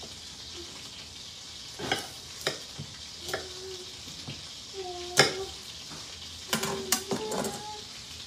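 Butter sizzling steadily in a hot steak pan, with sharp knife clicks and taps on a plate about two, two and a half, three and five seconds in and a quick cluster of them near the end, as garlic is cut.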